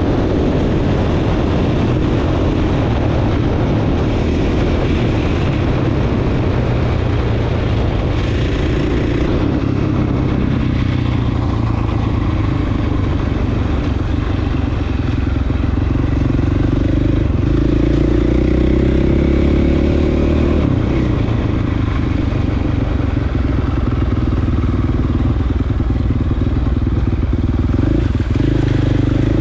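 Dirt bike engine running under way on a trail ride, its note shifting a little with the throttle and slightly louder in the second half.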